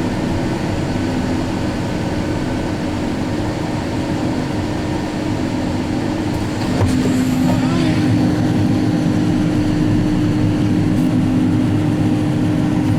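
Combine harvester running steadily while threshing beans, heard from inside the cab: a constant drone with a steady hum, getting somewhat louder about seven seconds in.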